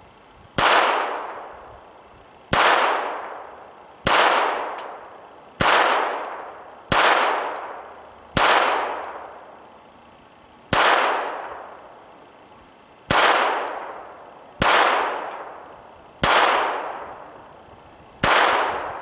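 Smith & Wesson M&P 22 pistol firing CCI standard-velocity .22 LR rounds in slow, deliberate fire: eleven single shots, one every one and a half to two and a half seconds, each a sharp crack with an echo that fades over about a second.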